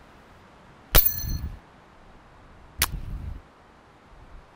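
Two .22 rifle bullets striking steel chicken silhouette targets, about two seconds apart: each a sharp metallic clang with a brief high ring, followed by a low rumble.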